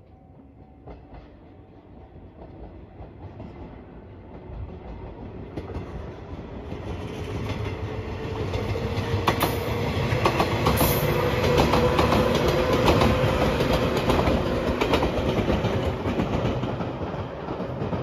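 JR 115-series electric train approaching and passing close by, getting louder to a peak about two-thirds of the way through and then easing off. Its wheels clack over rail joints several times, and under the rumble a motor whine rises in pitch.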